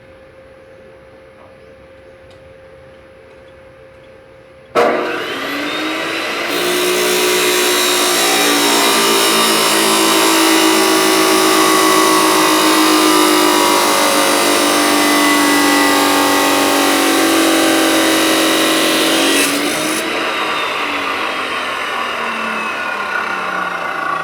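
Electric grinder switched on about five seconds in, its motor whine rising as it spins up, then grinding or cutting against material with a loud, harsh noise for about thirteen seconds. Near the end the grinding stops and the motor winds down with a falling whine.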